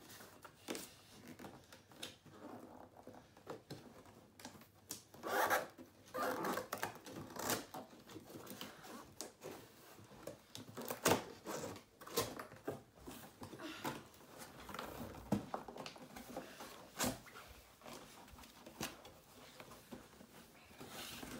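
Cardboard box being opened and rummaged through by hand: irregular rustling, rubbing and scraping of cardboard and packing, with many sharp clicks and knocks and louder bursts about five and eleven seconds in.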